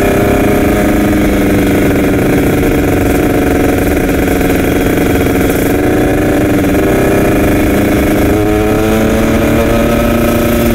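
Kawasaki Ninja sport motorcycle's engine running under the rider while cruising on a street at a steady, moderate throttle. Its pitch dips and rises slightly a few times as the throttle is eased and opened.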